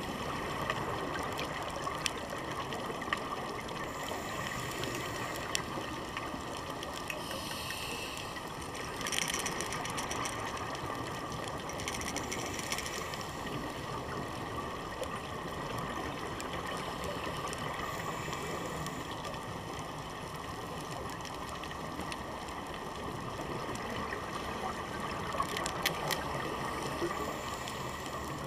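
Underwater ambience heard through a diving camera's housing: a steady muffled hiss with scattered sharp clicks, broken a few times by short bursts of bubbling.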